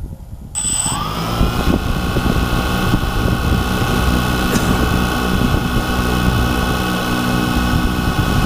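DJI Phantom 2 quadcopter's electric motors and propellers starting up about half a second in with a brief high tone, quickly rising in pitch, then running at a steady idle whine.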